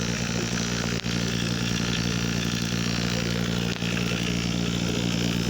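Refrigeration vacuum pump running steadily with an even hum, evacuating a refrigerator's sealed system to draw out air and moisture after a compressor replacement, before it is recharged with refrigerant.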